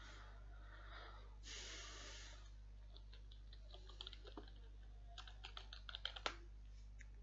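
Computer keyboard typing, faint: a quick run of key clicks in the second half, over a steady low electrical hum.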